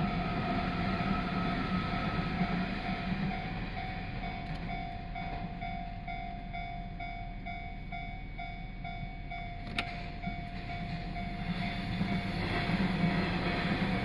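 A level-crossing warning bell rings on steadily in quick even strokes while an electric commuter train runs past. The train's rumble fades through the middle. A second train then comes up and passes close by near the end, louder than the first.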